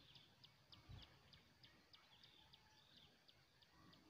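Near silence, with faint high chirps repeating evenly about three times a second from a small animal in the background.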